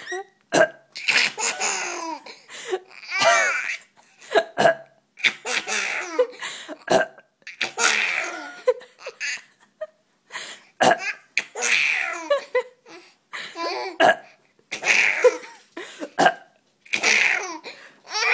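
Young child laughing hysterically in repeated fits, a fresh burst every second or two, with short fake burps from an adult in between that set off each new fit.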